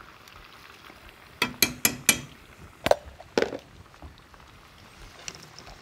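Rice deep-frying in hot oil in a cast iron pot, a steady faint bubbling sizzle. A quick run of four sharp clicks comes about a second and a half in, and two more knocks follow about a second later.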